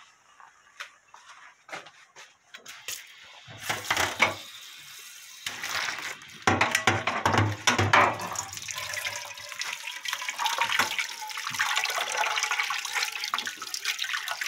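A few light clicks and knocks of pots, then hot noodle water poured off into a stainless steel sink about halfway through, followed by a kitchen tap running steadily over boiled noodles in a metal strainer as they are rinsed.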